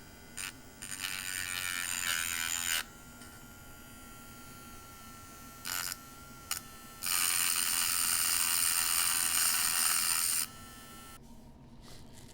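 A Dremel rotary tool with a grinding stone, running at slow speed, grinding down the crimped end of a die-cast model's steel axle. It gives a steady whine, with two long grinding passes and a few brief touches between them, and the motor is switched off near the end.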